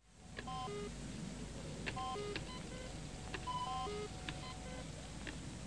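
Sci-fi computer console sound effect: electronic bleeps in short descending three-note runs, repeating about every second and a half, with faint ticks in between.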